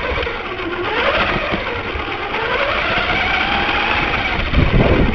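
Radio-controlled car's motor running as it drives over grass, its pitch rising and falling with the throttle. A louder low rumble with knocks sets in near the end.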